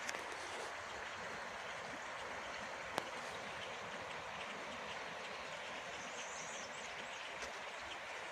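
Steady rush of flowing river water, with one sharp click about three seconds in.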